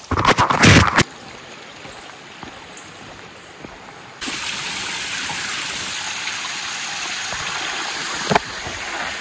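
Flowing water of a mountain creek, then about four seconds in a louder, steady rush as a cascading waterfall comes close. A loud burst of noise fills the first second, and there is a brief knock near the end.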